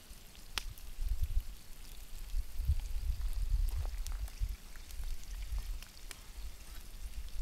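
Campfire crackling and popping under a skillet of frying trout: scattered sharp pops over a low, uneven rumble.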